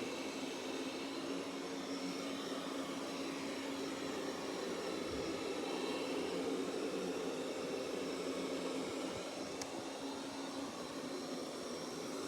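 Roborock Qrevo S robot vacuum running while it cleans: a steady whir of its suction fan with a low hum, swelling slightly around the middle.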